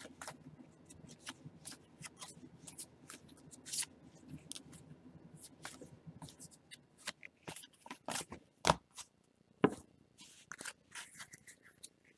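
Topps baseball cards being flipped through one by one in a hand-held stack: faint, irregular slides and clicks of card stock, with two sharper snaps about two-thirds of the way through.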